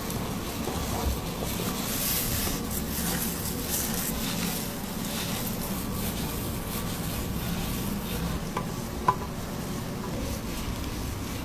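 Latex-gloved fingers rubbing and massaging a damp scalp and hair, a continuous close-up rubbing with many small crackles. There is a single sharp tick about nine seconds in.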